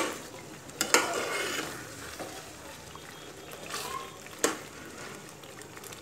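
A metal spoon stirring thick chicken korma masala in a metal pot, knocking sharply against the pot a few times, while the masala sizzles in oil.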